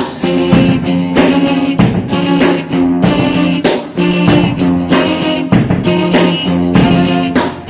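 Closing theme music with a steady beat and sustained chords.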